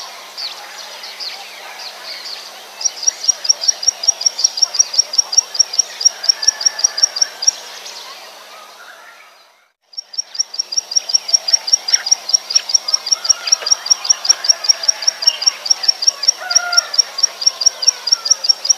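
Plain prinia (Prinia inornata) song used as a lure call: long runs of sharp, high, rapidly repeated notes, about six a second. The runs break off near the start, resume about three seconds in, stop again around the middle with a brief fade to silence, then run on again. Fainter background bird calls are heard underneath.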